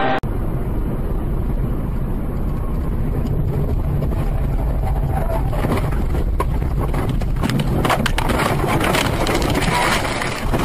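A vehicle running with a steady, strong low rumble and wind on the microphone. From about halfway on there is a rapid run of knocks and rattles.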